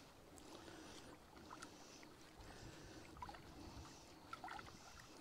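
Near silence: faint lapping of small waves at the loch's edge, with a few soft ticks.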